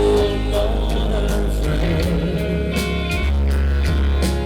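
Pop-rock band music between sung lines, with guitar, bass and drums.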